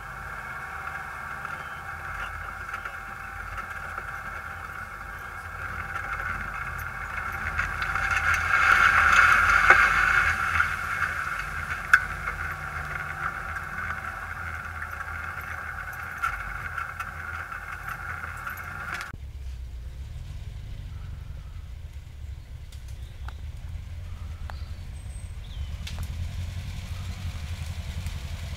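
Air-cooled VW flat-four of a Baja Bug running under load on a muddy track, heard from inside the car, building up loudest around eight to ten seconds in with a sharp knock near twelve seconds. About nineteen seconds in the sound cuts suddenly to the lower engine rumble of an approaching buggy, growing louder towards the end.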